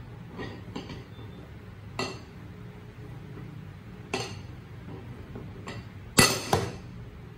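A ceramic bowl clinking against its plate several times as it is handled, with the sharpest clink about six seconds in and a short ring after it.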